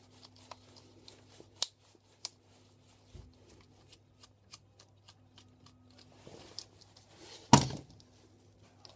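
Small clicks and scrapes of a plastic mains plug and its screws being handled and taken apart by hand, with one louder knock about seven and a half seconds in, over a faint steady hum.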